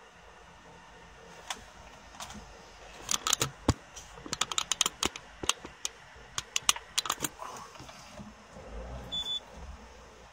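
A flurry of sharp, irregular clicks and taps close to the microphone, densest in the middle, followed by a brief high beep near the end.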